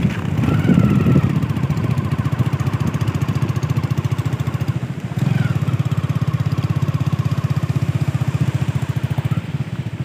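Motorcycle engine running under way, its rapid firing pulse steady. It eases briefly about five seconds in, picks up again, and falls unsteady near the end as the bike slows.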